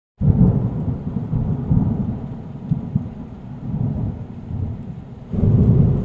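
Thunder rumbling, starting abruptly and rolling on, with a second louder roll about five seconds in.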